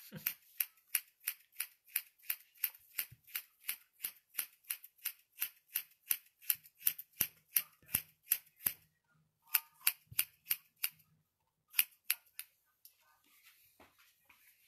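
Scissors snipping through hair during a haircut, in a steady run of about three to four snips a second. They stop about nine seconds in, then come back in two short bursts before fading off near the end.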